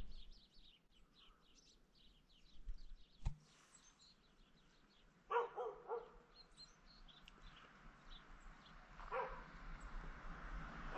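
A dog barking: a quick run of three or four barks about five seconds in and one more bark near nine seconds, with faint small bird chirps. Near the end the rushing noise of an approaching electric multiple unit starts to rise.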